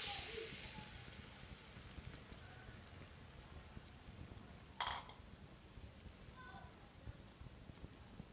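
Beaten egg with chopped spring onion and tomato hitting hot oil in a frying pan: a loud sizzle as it is poured in, easing into a steady hissing fry. A short sharp sound about five seconds in.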